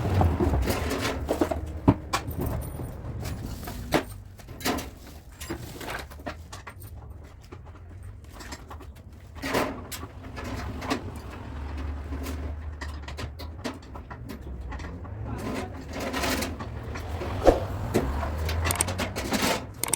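Body-shop work on a car: irregular knocks and metallic clinks of tools over a low steady hum.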